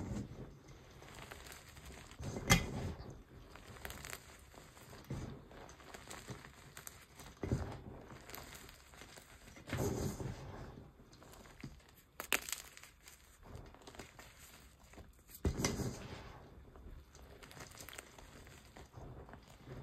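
Fingers pressing and squeezing into a bowl of loose cornstarch and chalk powder, giving soft crunching in irregular bursts. The loudest crunch comes about two and a half seconds in.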